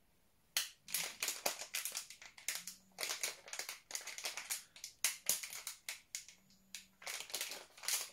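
Plastic and foil packaging rustling and crinkling in irregular bursts of sharp crackles while items are handled and picked out of a gift box.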